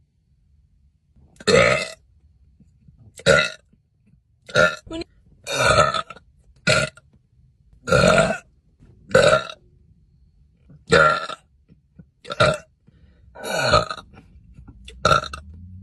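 A young woman burping over and over: about a dozen short, loud burps, each under a second, coming every second or two.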